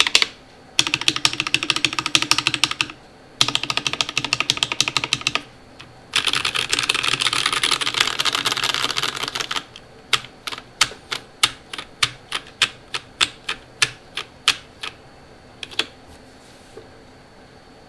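Keychron V5 mechanical keyboard with lubed Akko Jelly Blue switches on an aluminium plate and GMK keycaps being typed on. Three bursts of fast typing, then single keystrokes about three a second that thin out and stop near the end.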